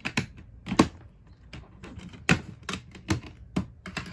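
DVD cases and discs being handled: about a dozen irregular sharp plastic clicks and taps.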